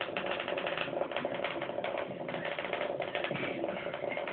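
Battery-powered toy bug running, its small motor and gears making a rapid, steady clicking rattle.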